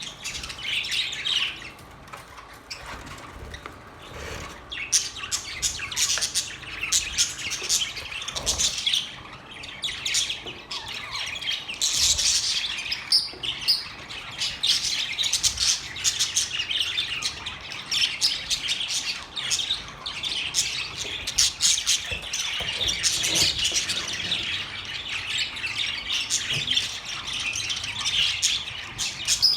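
Budgerigars chirping and warbling continuously, a dense chatter of quick, high chirps and trills.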